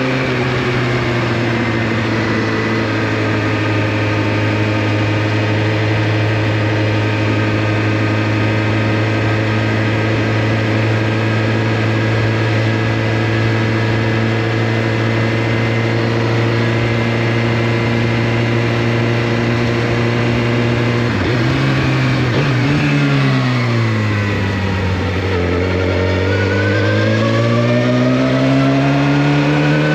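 2014 Suzuki GSX-R1000's inline-four engine running at steady revs while riding. About two-thirds of the way through, the revs drop away as the bike slows, then climb again near the end as it accelerates.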